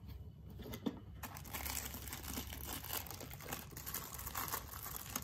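Plastic packaging crinkling and rustling as a speaker is unwrapped, starting about a second in.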